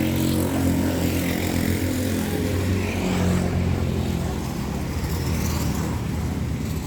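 An engine running steadily at an even, low pitch.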